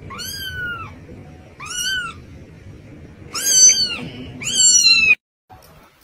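Kitten meowing four times, each high meow rising then falling in pitch, the last two the loudest: crying at its empty food bowl.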